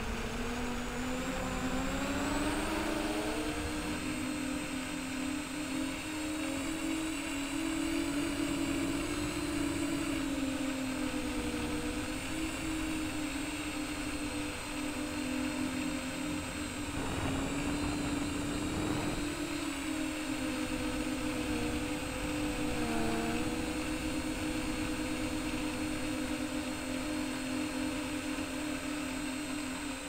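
Modded MJX Bugs 3 quadcopter in flight: its brushless motors and Gemfan 6045 three-blade props make a steady buzzing hum. The pitch rises a couple of seconds in, wavers as the throttle changes, and dips briefly about three-quarters through.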